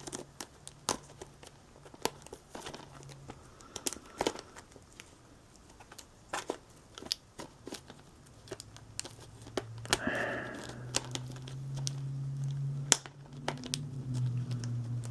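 Packaging on a boxed disc set being ripped and crinkled by hand, with scattered crackles and tearing sounds while it resists being opened.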